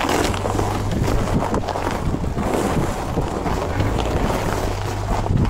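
Car engine running with a steady low hum as the car is jolted over rough, ridged lake ice, with irregular knocks and rattles from the body, heard from inside the cabin.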